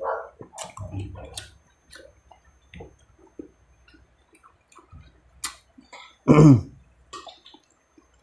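Close-up eating sounds of a man eating rice and beef by hand: scattered wet chewing and lip-smacking clicks, with one short, loud throaty sound falling in pitch about six seconds in.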